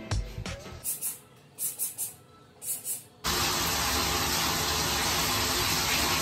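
A trigger spray bottle of cleaner is squirted in about six quick, short hisses. About three seconds in, a steady rushing noise starts suddenly and carries on.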